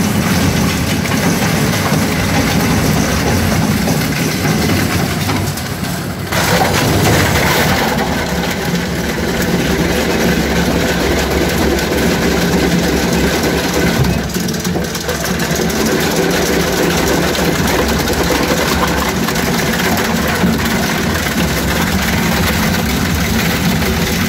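Single-shaft shredder (ARP EZ 100) running under load, its toothed rotor chewing through material with a loud, steady grinding drone; the sound shifts about six seconds in, and in the later part it is shredding plastic crates.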